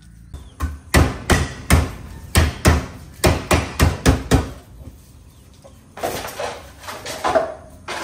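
Lemongrass stalks being smashed: about a dozen hard blows, roughly three a second, then after a short pause a few lighter, uneven knocks and rustles.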